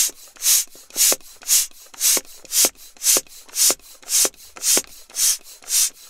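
Bicycle stand pump being worked steadily while filling a bicycle tyre: each stroke a sharp rush of air, about two strokes a second.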